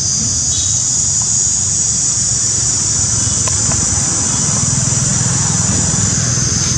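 Steady, high-pitched drone of an insect chorus, with a low rumble underneath and a few faint ticks.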